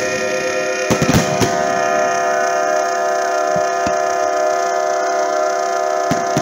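Fireworks going off: a cluster of sharp bangs about a second in, a couple more midway and another near the end, over a continuous steady droning tone of several pitches.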